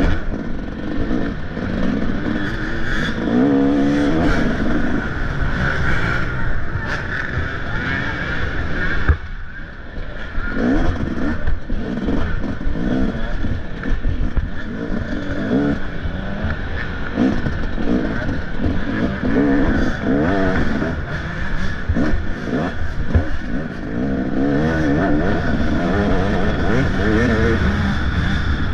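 Motocross dirt bike engine revving up and down as the bike is ridden hard around the track, with clatter from the bike over rough ground. About nine seconds in there is a sharp knock, and the engine briefly drops off before pulling again.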